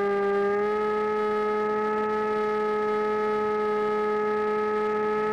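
Electric motor and propeller of an AXN Floater Jet RC plane whining steadily in flight, heard through its onboard camera; the pitch steps up slightly about half a second in as the throttle is raised, then holds.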